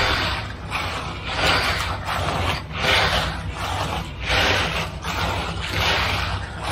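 Magnesium hand float scraping over wet concrete along the slab's form edge in repeated strokes, about one every one and a half seconds, with a steady low hum underneath.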